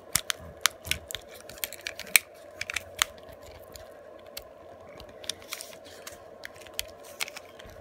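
Utility knife blade prying and scraping at a MiFi hotspot's plastic case and circuit board: a run of sharp clicks and small plastic snaps, thick in the first three seconds and sparser after.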